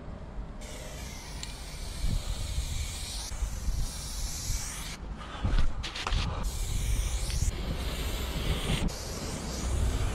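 Aerosol spray-paint can hissing in several sprays a few seconds long, with short breaks between them, and a few sharp knocks about five to six seconds in. Wind rumbles on the microphone throughout.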